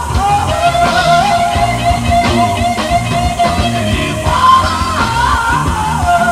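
Live rock band playing an instrumental passage: wavering electric guitar lead lines over bass guitar and drums.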